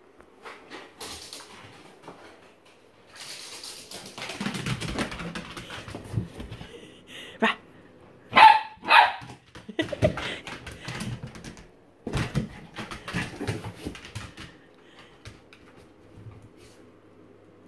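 Small terrier giving a few sharp barks around the middle, amid scuffling and rustling as she burrows and rolls in her fabric bed and blanket during excited zoomies after a towel dry.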